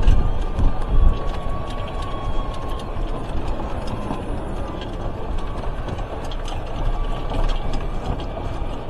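Golf buggy driving across the course: a steady low rumble with light rattling and a faint high whine in the first few seconds.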